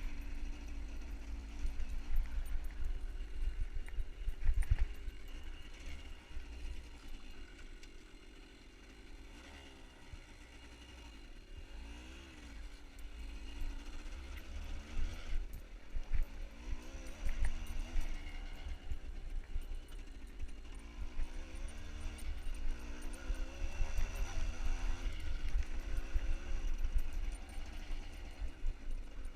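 Farm motorbike engine running, its pitch rising and falling as the throttle opens and closes, over a steady low rumble.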